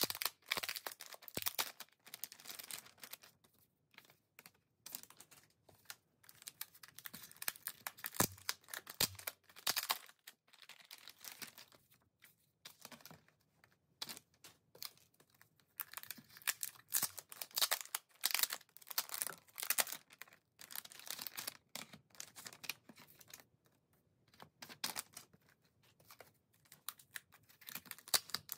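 Foil-lined plastic pouch crinkling and tearing as it is opened by hand, in irregular bursts with short pauses. There are two low knocks about eight and nine seconds in.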